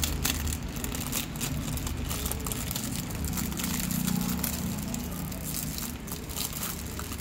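Thin clear plastic wrap crinkling and crackling as it is peeled off a power bank by hand, in many small irregular crackles.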